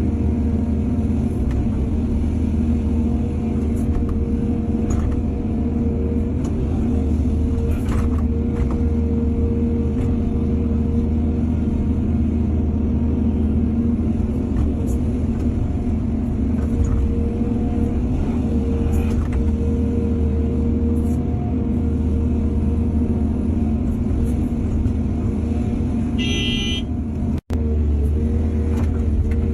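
Heavy diesel engine of an excavator running steadily under load, with scattered light clanks, and a brief high beep near the end.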